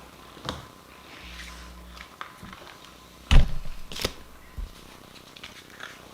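Tarot cards being gathered up and handled after the deck was dropped: scattered light taps and clicks, with one sharp knock on the table a little over three seconds in and a couple of lighter knocks after it.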